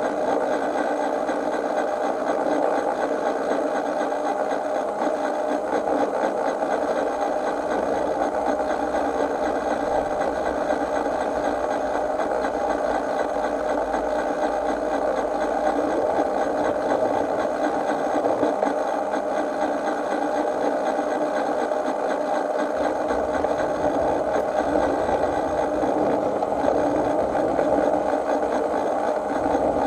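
Miniature railway train running along its track, a steady mechanical whirring of its drive and wheels on the rails, picked up by a camera riding on the train.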